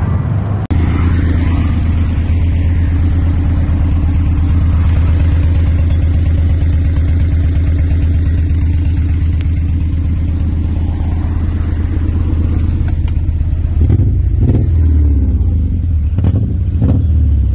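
1997 Acura Integra's four-cylinder engine running at the tailpipe with a steady low drone, with a couple of brief louder bumps near the end. The engine is sick and trails heavy smoke; the owner blames worn piston rings rather than the failing head gasket the shop suspected.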